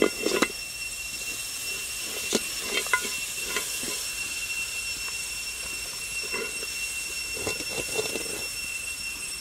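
Whole king crab sizzling in a hot wok, with a steady hiss and scattered knocks and clacks of the hard shell and legs against the pan as they are pressed and shifted.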